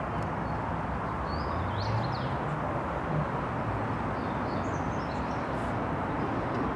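Steady outdoor background noise with a few short, high bird chirps in two small groups, about one and a half and five seconds in.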